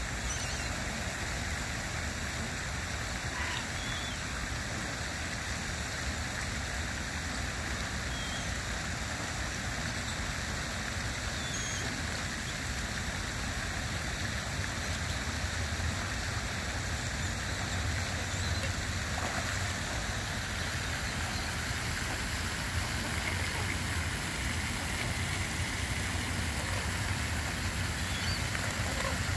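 Steady outdoor background noise: an even rushing hiss with a low rumble underneath, with a few faint short high sounds here and there.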